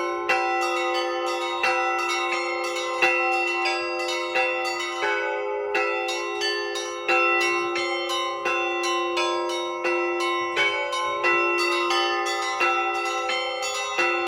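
Russian church bells rung by a bell ringer: small bells struck rapidly, several times a second, over the sustained ringing of larger bells, with a heavier stroke about every second and a half.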